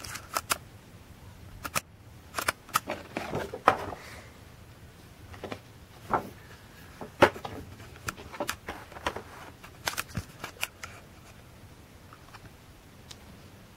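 Cardboard toy boxes and plastic packaging being handled, giving irregular taps, knocks and rustles.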